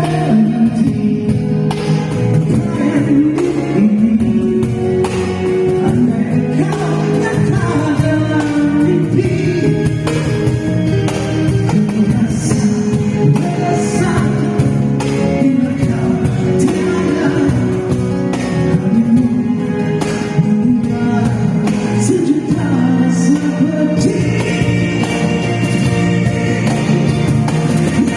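Live acoustic band performance: a vocalist singing a Malay song over acoustic guitar accompaniment.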